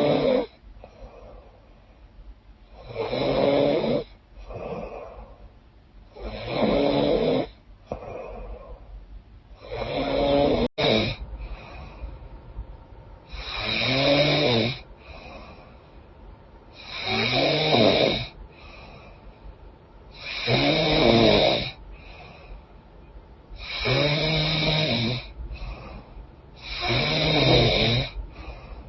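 A sleeping woman snoring loudly through a congested nose. Pitched snores come about every three and a half seconds, with fainter breathing between them.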